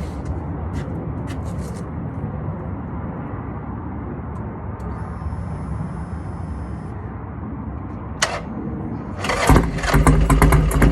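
2007 Buell Lightning's air-cooled V-twin running just after a cold start, idling with a low, steady rumble. Near the end it is revved, going much louder with rapid, rough firing pulses.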